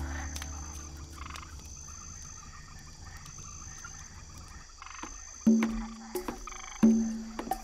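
Frogs croaking in a night chorus; loud, regular croaks come to the fore from about five and a half seconds in. Faint short high chirps repeat above them, and a low drone fades out over the first few seconds.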